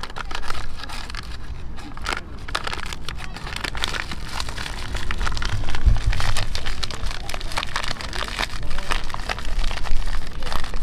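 Crinkling and rustling of a paper packet being handled, with a brief low rumble about six seconds in.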